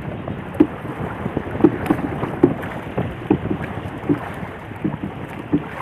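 A wooden paddle being worked through the water from a small boat, with short knocks and splashes at each stroke. Wind buffets the microphone.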